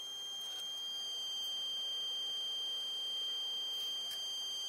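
Steady high-pitched electronic whine, a single tone, from the small vintage inverter powering the tube instrument.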